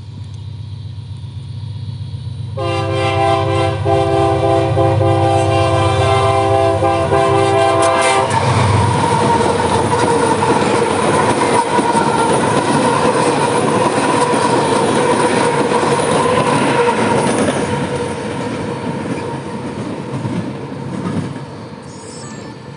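Diesel freight locomotive approaching with its engine rumbling, then its air horn sounding one long chord for about five seconds. The train then passes with loud, steady rolling noise of wheels on rail and a steady whine, easing off near the end.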